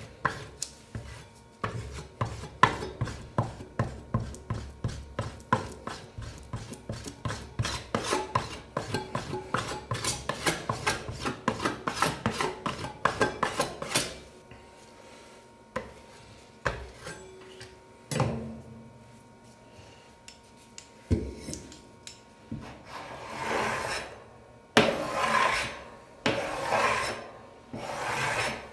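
Metal spatula scraping and tapping on freezing ice cream and a stainless steel cold plate: quick, rapid strokes through the first half, a few scattered knocks in the middle, then several longer scrapes near the end as the sheet is cut into strips for rolling.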